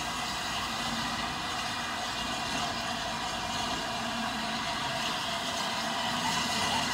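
LNER A3 steam locomotive 60103 Flying Scotsman moving slowly along the platform: a steady noisy sound with no clear beat, growing slowly louder as the engine draws nearer.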